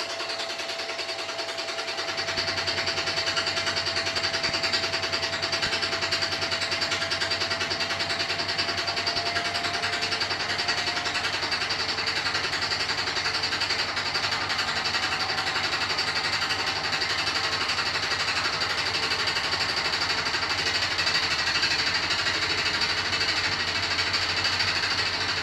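Beko WY124PT44MW 12 kg washing machine running with a fast, continuous rattle from inside, as if falling apart. The cause is a transport bolt left in place at installation. A faint steady whine sits under the rattle for about the first ten seconds.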